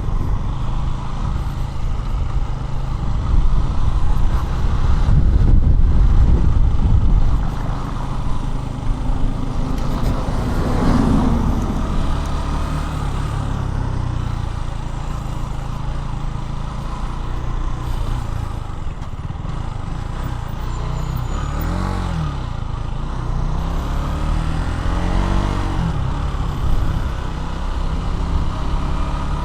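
KTM Duke 200's single-cylinder four-stroke engine running under way, its pitch rising and falling several times as the throttle and gears change. Heavy wind rumble on the microphone, loudest a few seconds in.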